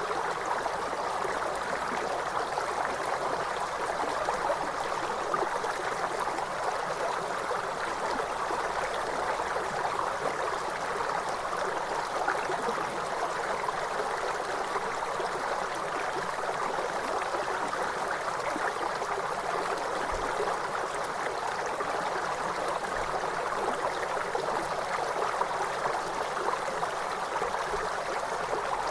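River water flowing, a steady, even rush of water that does not change.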